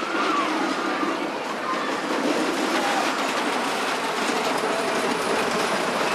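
An amusement-park ride train rumbling and clattering along its track, with a few faint wavering squeals in the first couple of seconds.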